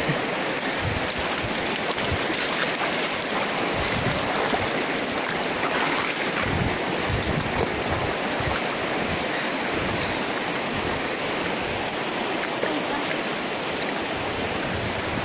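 Shallow river rushing over a rocky bed, a steady hiss of water, with wind buffeting the microphone now and then.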